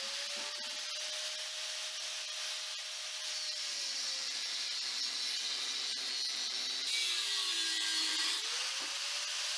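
Corded electric angle grinder with a cut-off disc slicing through the steel wall of a tank, a steady high motor whine over the hiss of the cut. The whine sags in pitch as the disc bites harder, most of all about seven to eight and a half seconds in, then climbs back as the load eases.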